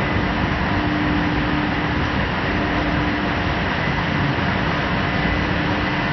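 High-speed slitting and rewinding machine running, slitting a paper web and winding the strips onto rolls: a steady, even mechanical whirr with a faint steady hum.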